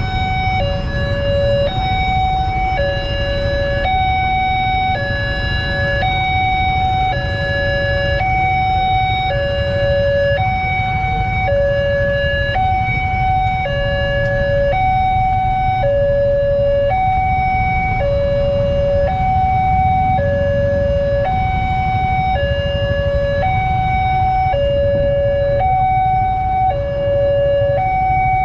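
Railway level-crossing warning alarm sounding its electronic two-tone signal, a lower and a higher note alternating steadily, each held under a second; it signals that the crossing is closed for an approaching train. A low rumble of idling motorcycle and car engines runs underneath.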